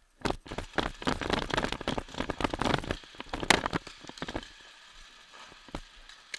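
Paintball markers firing in rapid strings, a dense crackle of shots for about three seconds that then thins to scattered single pops.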